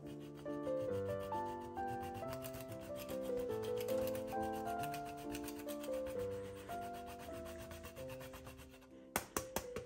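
A block of Parmigiano-Reggiano being grated on a flat stainless-steel hand grater: quick repeated scraping strokes of hard cheese over the metal teeth. A few sharp taps near the end.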